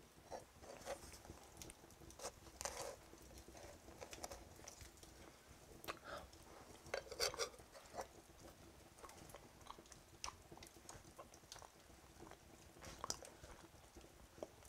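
A person chewing a freshly roasted chestnut: faint, irregular crunching and mouth noises, with a slightly louder bite about seven seconds in.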